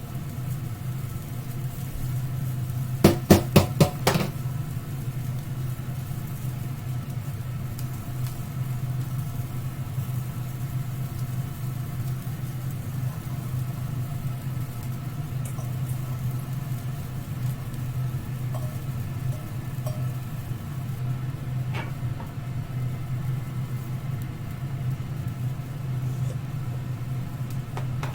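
Steady mechanical hum of a running kitchen appliance, broken about three seconds in by a quick run of about five sharp clicks.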